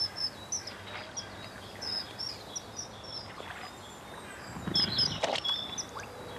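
Short, high bird chirps recur throughout. About five seconds in comes a brief rush ending in a small splash: a common kingfisher plunging into a shallow basin of water to catch a fish.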